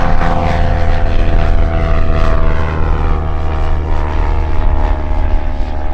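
JMB Aircraft VL-3 Evolution light propeller plane flying past as it climbs away, engine and propeller running steadily and loud; the pitch falls as it passes the listener.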